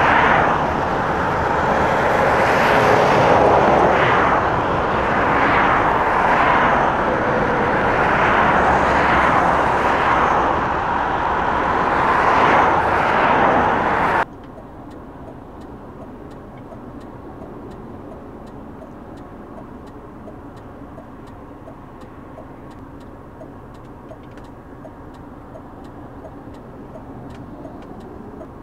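Heavy motorway traffic of lorries, vans and cars, with repeated rushes of tyre and engine noise as vehicles pass one after another. About fourteen seconds in it cuts suddenly to a much quieter, steady distant traffic rumble with faint ticking.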